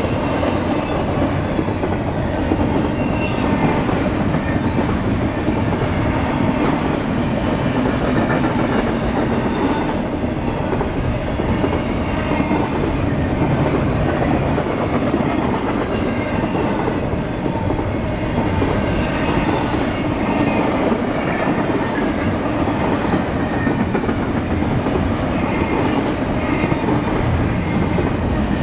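Double-stack container train rolling steadily past close by: a continuous rumble of its well cars' steel wheels on the rails, with repeated clicks as the wheels run over the rail joints.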